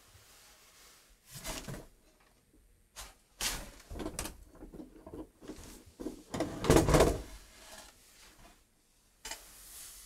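Objects being shifted and knocked about on wooden shelves in four separate bouts of handling noise, the loudest a clatter about seven seconds in, as a small box is taken down.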